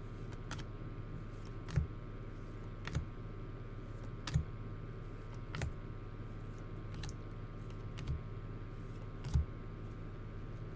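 Paper trading cards being flipped one at a time through an opened pack, a light click or tap roughly every second and a quarter, over a steady electrical hum.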